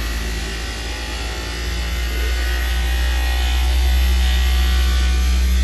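Failing Daikin VRV hermetic inverter compressor running with a steady low hum, getting slightly louder about two seconds in. The compressor is failing and is judged done.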